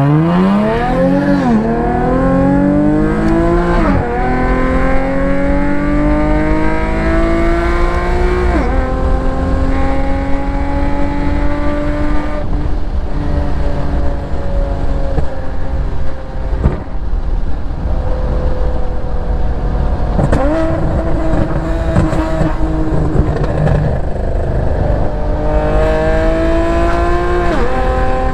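Infiniti G37 sedan's 3.7-litre V6, with a 3-inch single-exit exhaust and resonated test pipes, heard from inside the cabin. The engine pitch climbs and falls back at each upshift, three times in the first nine seconds, then settles to a steady cruise, and climbs through one more shift near the end.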